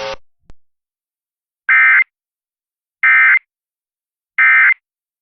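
Emergency Alert System end-of-message (EOM) data signal: three short bursts of digital data tones a little over a second apart. They mark the end of a relayed tornado warning.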